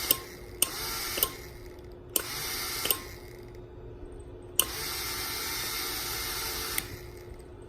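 Small fan motor running in short spells, stopping abruptly each time the momentary push button switch is pressed and starting again when it is let go, with a sharp click at each change. There are four spells of running, the last about two seconds long. The switch is wired normally closed, so pressing the button cuts the fan.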